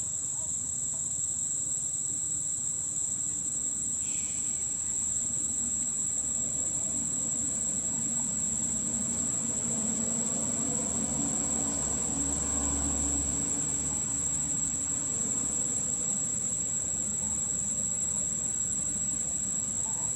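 Steady high-pitched insect drone. A low rumble swells and fades in the middle.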